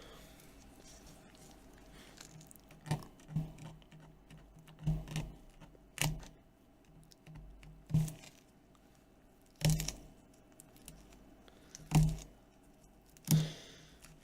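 Irregular light clicks and scrapes, about nine, of fingers and a small pry tool working at old adhesive tape on a tablet's plastic frame.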